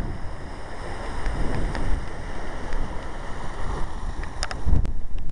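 Wind buffeting the microphone in uneven gusts, with a few sharp clicks near the end.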